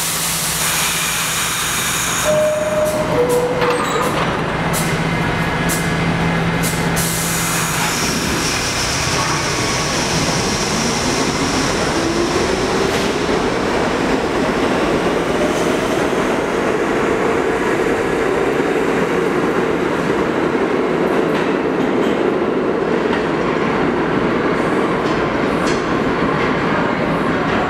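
R68 subway train at the platform: a hiss of air at the start, a two-note falling door chime about three seconds in and clunks of the doors closing. Then the train pulls out, its traction motor whine rising in pitch and levelling off as it speeds up, over a steady rumble of wheels on rail.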